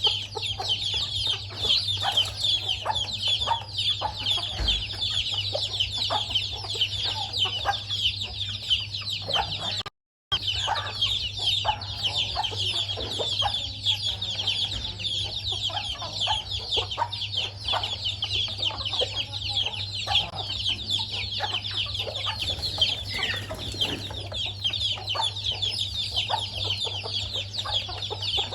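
A hen with her chicks feeding: a constant chorus of many overlapping high, short chick peeps, with scattered lower hen clucks and a steady low hum underneath. The sound cuts out briefly about ten seconds in.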